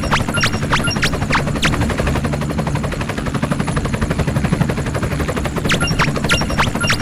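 Animated gunfire sound effects: a rapid, continuous machine-gun-like clatter, with quick falling laser-style zaps and short beeps in the first second and a half and again near the end.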